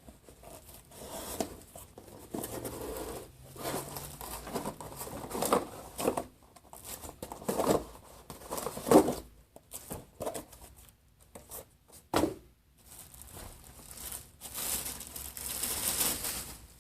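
Packaging being unpacked: plastic and paper rustling, crinkling and tearing in irregular bursts, with a single sharp knock about twelve seconds in.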